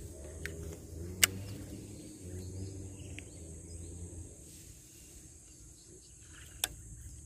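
A distant motor's low hum that fades out about four seconds in, over a steady high insect drone, with a few sharp clicks.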